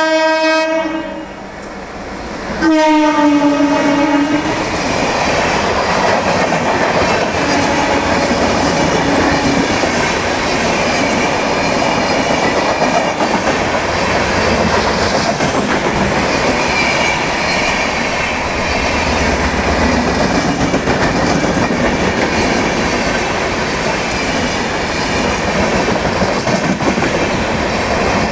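Twin-tone horn of an Indian Railways WAP-4 electric locomotive: one blast runs into the first second and a second starts under 3 s in, falling in pitch as it passes. Then the train runs past with a steady loud rolling noise.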